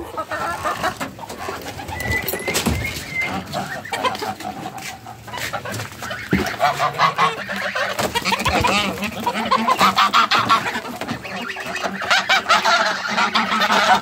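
A backyard flock of chickens and white waterfowl clucking and calling excitedly as they are given a tub of feed mash. The calling grows thicker and louder about halfway through, as the birds crowd in to eat.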